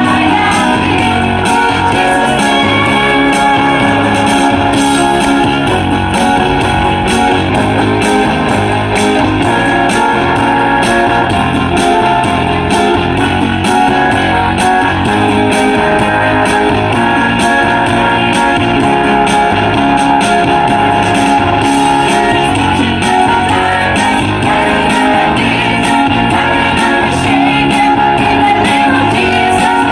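Guitar-led backing music with a steady beat, played through small portable amplifier speakers, with a group of women singing along into handheld microphones.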